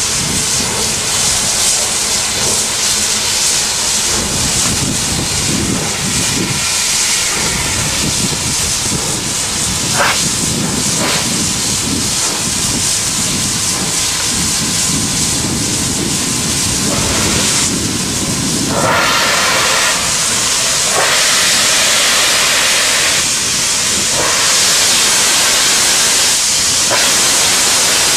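Canadian Pacific 2816, a 4-6-4 Hudson steam locomotive, moving slowly with a loud, continuous hiss of steam venting from its open cylinder cocks. The hiss grows louder about two-thirds of the way through.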